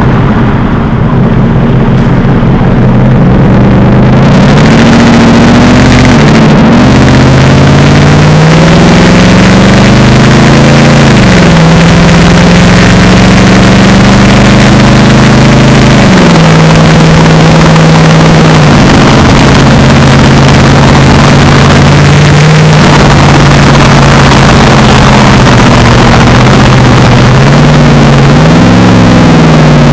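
Mercedes-Benz SLR McLaren's supercharged 5.4-litre V8 running loud through a Devil Sports aftermarket exhaust. The revs climb, hold steady and drop several times over, with a small blip up again near the end.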